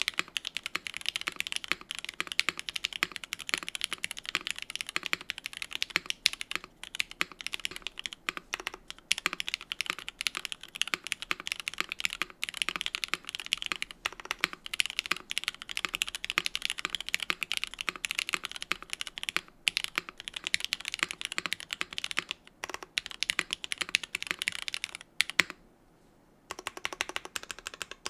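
Typing on a Suisei65 R2 custom mechanical keyboard with lubed, diamond-polished Cherry MX Black Hyperglide linear switches in an aluminium plate and GMK keycaps: a fast, continuous stream of keystrokes, pausing for about a second near the end.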